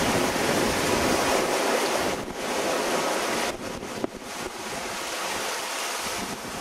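Rushing sea and wind around a sailing yacht under way in rough ocean waves, with wind buffeting the microphone; the rush drops back about three and a half seconds in. A brief sharp click about four seconds in.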